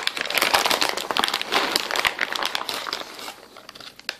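Plastic bag of cashews crinkling as it is handled, a dense crackle that fades out near the end, with one sharp click just before it stops.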